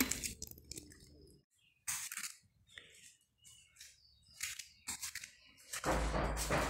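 Scattered soft clicks and rustles from a phone being carried and handled while walking, with a louder rumbling knock of handling about six seconds in.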